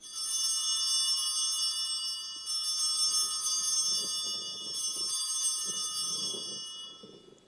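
Altar bell rung three times at the elevation of the chalice during the consecration, each strike clear and ringing on before the next, dying away near the end.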